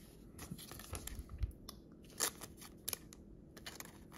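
A trading card being handled and slid into a thin clear plastic sleeve: scattered soft crinkles and clicks of plastic and card, with a dull bump about a second and a half in and a sharper click about two seconds in.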